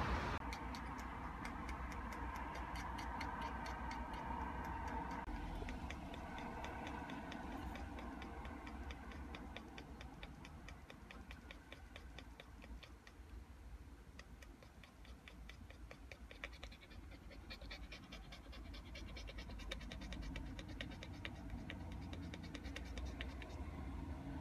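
Small dog panting in a fast, steady rhythm, over the low steady rumble of the car it is sitting in.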